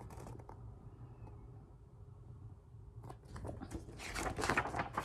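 Quiet room tone, then about three seconds in, a run of irregular paper rustling and flapping as a picture book is handled and its page turned.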